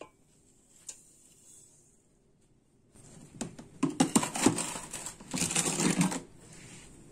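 Granulated sugar crackling and crunching as it is handled with a glass over halved apricots in a metal pot: a dense run of crisp clicks in the second half, with a single click at the start and another about a second in.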